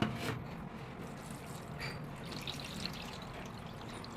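Water running and dribbling as soaked red lentils are rinsed, a steady trickle with a few small knocks and splashes.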